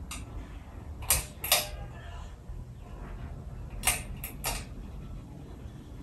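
Harbor Breeze Edenton ceiling fan running with a low steady hum, its housing giving short groups of sharp creaks, two about a second in and three near the four-second mark.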